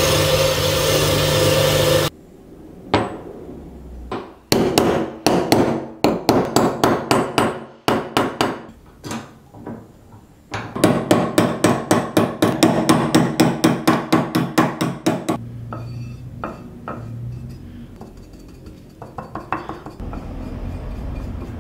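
Wire brush wheel spinning against steel for about two seconds, then a hammer striking a thin steel lock plate held in a vise. The blows come singly at first, then in a fast even run of about six a second for some five seconds. Faint brushing follows near the end.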